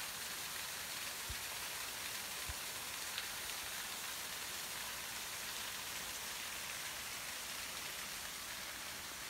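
Water gushing from a mountain spring's outflow pipe and splashing down, a steady hiss that grows a little quieter near the end.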